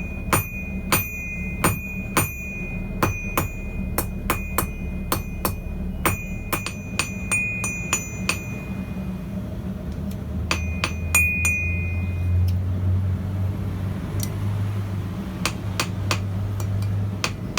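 Hand hammer striking hot steel on a small Chinese bread loaf anvil; the anvil rings with a high, bell-like tone at each blow, which the smith calls loud. The blows come steadily at about two a second for the first eight seconds, pause, come again in a short run, then turn to lighter taps near the end, over a low steady hum.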